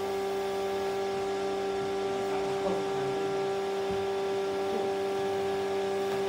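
A steady mechanical hum at one unchanging pitch, with several overtones above it.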